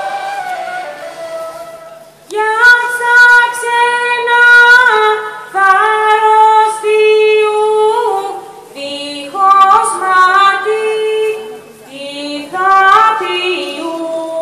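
A woman singing a Tsakonian folk song in long held notes, in phrases of two to three seconds each with short breaks between them.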